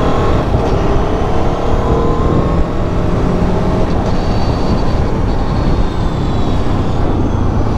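Aprilia Tuono V4 1100 Factory's V4 engine running while the bike is ridden, its pitch sliding up and down as the throttle changes, under steady rushing wind noise. The stock exhaust is quiet, barely heard over the wind.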